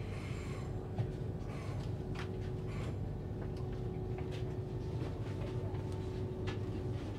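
Railway station platform ambience: a steady low hum with a faint steady tone over it, scattered light clicks and knocks, and brief faint voices in the background.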